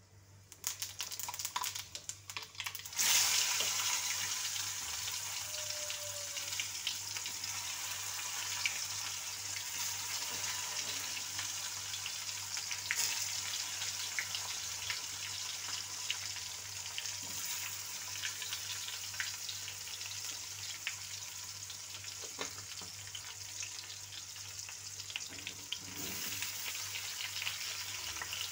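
Stuffed bitter gourds frying in hot oil in an iron kadhai: a few crackles at first, then the sizzling jumps sharply about three seconds in as the gourds go into the oil, and goes on as a steady sizzle with constant small pops and spatters.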